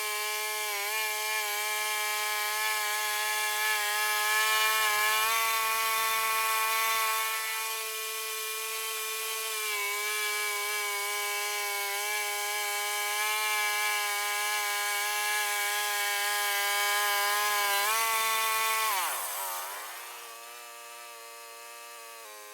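Sawmill engine running at high speed with a steady whine while the blade cuts through a blue spruce log. About nineteen seconds in, the engine's pitch falls sharply and it settles to a quieter idle.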